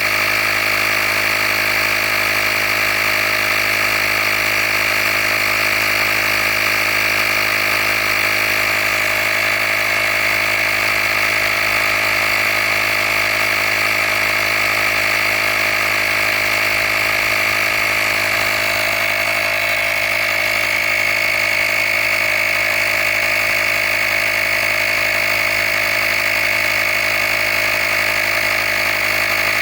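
Handheld tire-inflator air compressor running steadily as it pumps up a tire toward a preset 35 PSI, a constant motor and pump whine.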